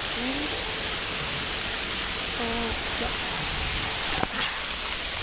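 Steady hiss of cold water spraying and pouring down from a pool splash-play structure.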